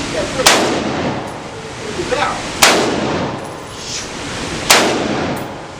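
Three single gunshots, about two seconds apart, each sharp crack trailing off in a ringing echo.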